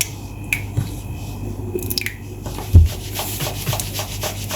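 Small clicks and taps of kitchen utensils being handled, with one heavier thump about three seconds in, over a steady low hum.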